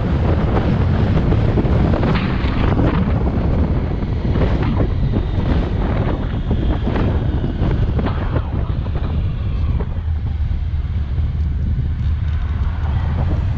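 Wind buffeting the microphone of a moving motorcycle over the steady low drone of its engine at town speed. The wind eases after about ten seconds as the bike slows.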